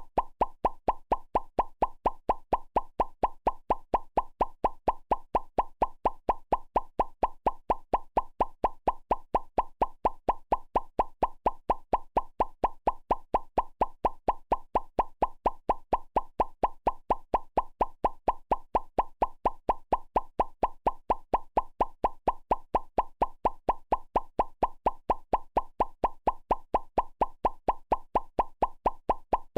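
Cartoon pop sound effect for hearts popping up, repeated in a steady, even series of short plops, about three a second.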